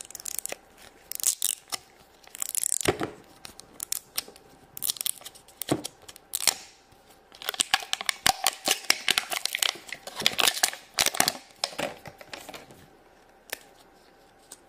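Plastic wrapping of an L.O.L. Surprise ball being torn and peeled open by hand: crinkling and tearing in irregular bursts, which die down to a few clicks about 13 seconds in.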